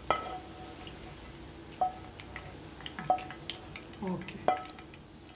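A spoon scraping and knocking against a steel plate and the frying pan as sautéed onions are scooped out. About four sharp knocks, each ringing briefly, over a faint sizzle of the frying.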